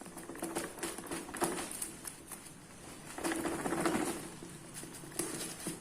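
Irregular light clicks and rustling from a keyboard and its packaging being handled, busiest a little past the middle.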